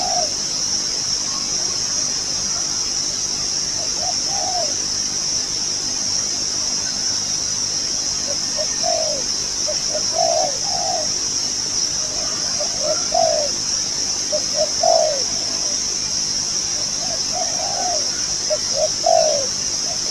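Decoy dove cooing in short phrases of two or three low notes, repeated at irregular intervals and more often in the second half, over a steady high-pitched hiss.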